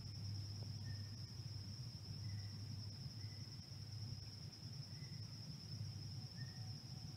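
Insects trilling in one steady, unbroken high note in the woods, with a low steady rumble underneath and a few faint, short higher chirps about once a second.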